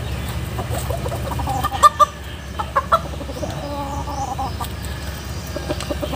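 Chicken clucking and squawking as it is caught and held by hand, with a few short loud squawks about two seconds in and again near three seconds.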